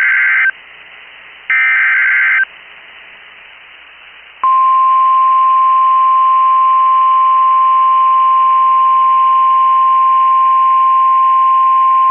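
Emergency Alert System signal ahead of a severe thunderstorm warning. First come the last two of the three SAME header data bursts, harsh buzzy screeches about a second long with a second's gap between them. After a short pause, NOAA Weather Radio's steady 1050 Hz warning alarm tone starts about four and a half seconds in and holds.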